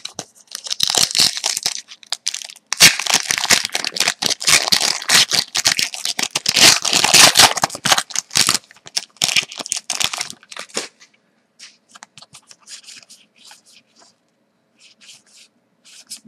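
Foil wrapper of a 12/13 Artifacts hockey card pack crinkling and tearing as it is ripped open, in dense crackling bursts that are loudest in the middle. Over the last few seconds only faint rustles from handling the cards and wrapper remain.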